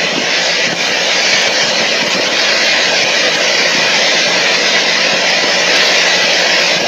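Loud, steady rushing hiss that does not change.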